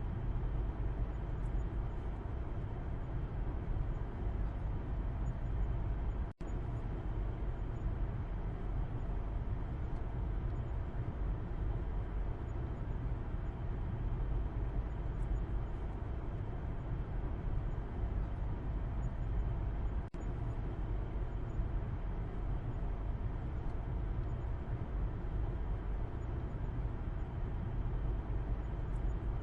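Steady road and engine noise of a moving car heard from inside the cabin at the back seat, a low, even rumble with no distinct events.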